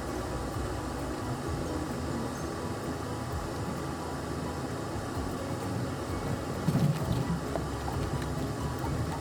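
Jeep engine running and tyres rolling over a rough dirt trail, a steady rumble with a short louder thump about seven seconds in.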